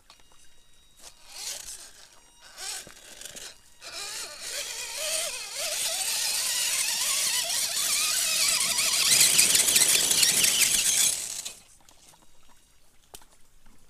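RC rock crawler's motor and gearbox whining, the pitch wavering up and down with the throttle, while its tyres churn and splash through a shallow stream. The sound builds over several seconds and cuts off suddenly near the end.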